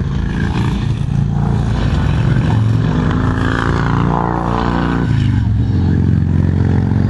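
A motor vehicle's engine running, its pitch rising and then dropping sharply about five seconds in before holding steady.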